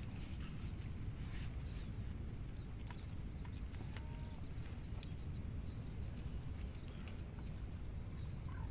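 Outdoor ambience: a steady high-pitched insect drone over a low rumble, with a few faint bird calls.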